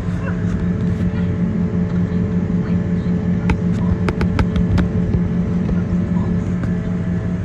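John Deere tractor engine running steadily under load, heard from inside the cab while pulling a tillage implement through corn stubble: a steady low drone. A handful of sharp clicks come a little past halfway.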